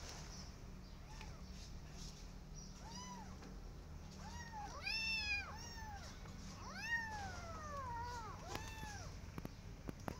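Young kittens meowing: a run of short, high mews that rise and fall in pitch, sometimes two at once, with the loudest about five seconds in.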